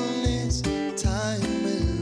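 Background music: a song with acoustic guitar and a steady beat.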